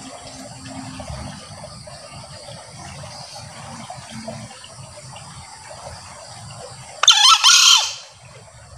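Male green junglefowl giving one short, high-pitched call about seven seconds in, over a steady background hiss.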